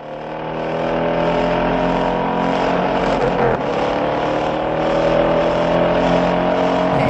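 Car engine running hard, fading in at the start; its pitch holds fairly steady, falters briefly about halfway, then climbs slowly as it accelerates.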